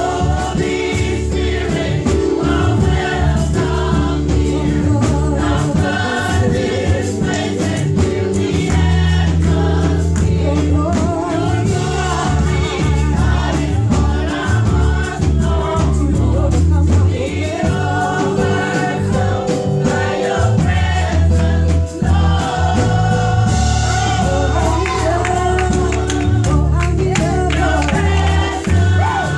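Women's gospel vocal group singing an upbeat old-school gospel song into microphones, over a band with a heavy bass line and drums.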